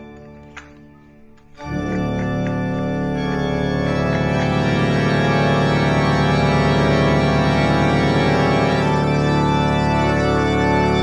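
Background music of held, organ-like chords. It comes in about two seconds in after a short quieter stretch with a couple of faint clicks, then stays loud and steady.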